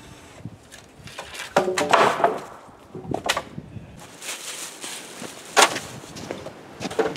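Scattered knocks and clatter of gear and boards being handled on a wooden plank sledge, with a busy run of knocks early on and one sharp, loud knock a little past halfway.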